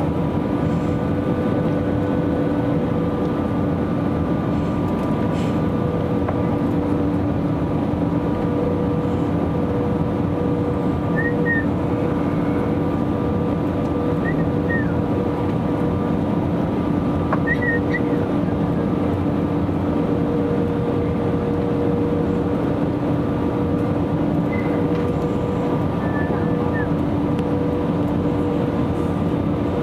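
Steady cabin noise of a jet airliner descending on approach to land, heard from a window seat over the wing: turbofan engine and airflow noise with a steady hum.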